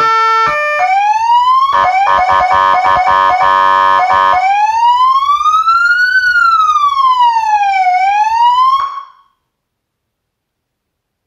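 Electronic police siren through a Federal Signal ES100C speaker, driven by an AS320Dig amplifier, switching through its tones. It plays a stepped multi-tone signal, then a short rising sweep, then a rapid pulsing warble, then a slow wail rising and falling. It cuts off abruptly about nine seconds in.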